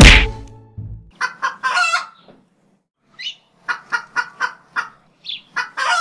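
A sharp hit at the start, then a hen clucking in short runs of quick clucks with a few higher squawks.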